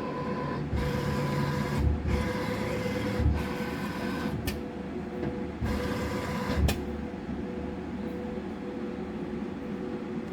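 IMES-ICORE CORiTEC 350i PRO 5-axis CNC milling machine running, with a steady whine. Four stretches of hissing of about a second each break in, and there are two sharp clicks.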